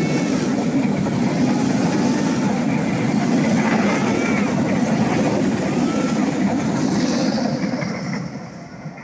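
Train running past on the rails: a loud, steady rumble of wheels and cars that fades away near the end.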